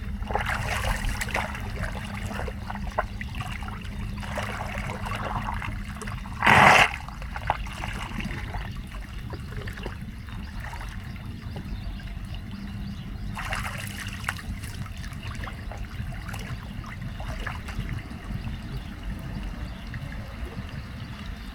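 Floodwater running and trickling into a street storm drain. There is one brief, much louder burst of noise about six and a half seconds in.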